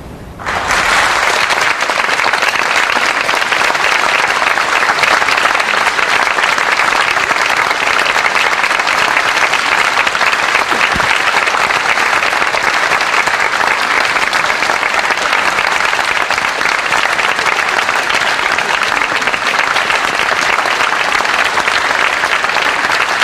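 Concert hall audience applauding. The clapping starts suddenly about half a second in and then holds steady and dense.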